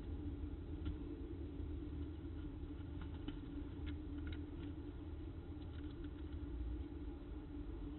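Steady low hum, with faint scattered ticks and scratches of peregrine falcon chicks' feet shifting on the nest box's gravel floor.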